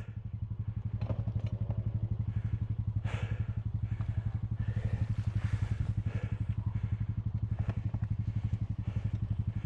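ATV engine idling steadily with an even, rapid pulse.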